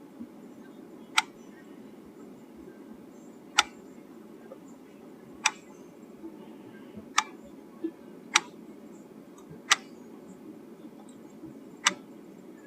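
A series of sharp clicks, about seven, one to two seconds apart at uneven spacing, over a steady low hum.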